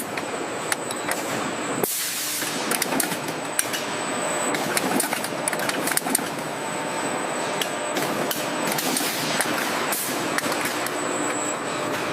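Factory machinery running: a steady mechanical hiss and clatter with many sharp clicks and knocks, changing abruptly about two seconds in.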